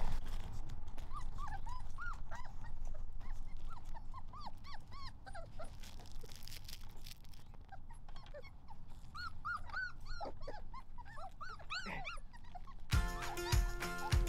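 Four-week-old Weimaraner puppies whimpering and squeaking: many short, high cries that rise and fall, scattered and overlapping. Background music with a beat starts near the end.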